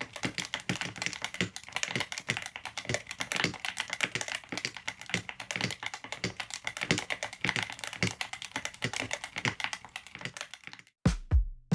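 Typing on a Yunzii C68 mechanical keyboard with Yunzii Milk linear switches: a fast, continuous patter of keystrokes that stops shortly before the end, when music begins.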